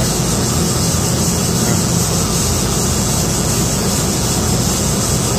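A sportfishing boat's engines running steadily under a constant rush of wind and sea.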